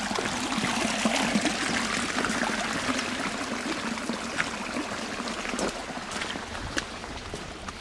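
Shallow stream running over stones, a steady rush of water that slowly fades, with a few footsteps splashing through shallow water in the second half.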